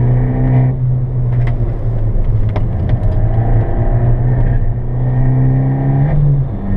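Alfa Romeo MiTo's engine running as the car drives along, heard from inside the cabin with road noise underneath; the engine note rises a little mid-way and shifts down near the end.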